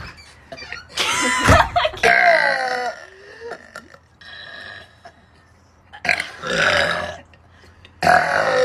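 A girl burping repeatedly: two long, pitched burps back to back about a second in, the second falling in pitch, then another around six seconds and a shorter one near the end.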